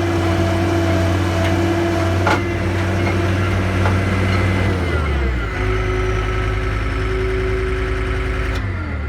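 Skid steer engine running steadily, throttled down to a lower speed about halfway through, then winding down near the end as it is shut off. A single knock comes about two seconds in.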